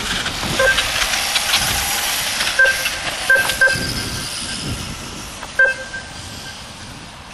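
1/5-scale electric radio-controlled motorbikes racing past, their motors and drivetrains giving a high hissing whine that fades toward the end, with a few short, sharp chirps.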